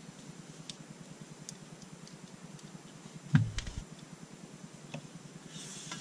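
Handling noise from an AR-15 and its metal scope mount: a few light clicks, one dull thump about three and a half seconds in as the rifle is shifted on a padded mat, and a brief rustle near the end.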